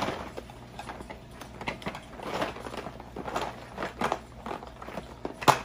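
Small plastic toy pieces and packaging being handled and rummaged in a plastic tub: irregular crinkling and clicking, with one sharp click near the end.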